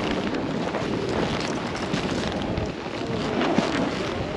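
Gusting wind buffeting a GoPro's microphone: a continuous rushing, rumbling noise that rises and falls.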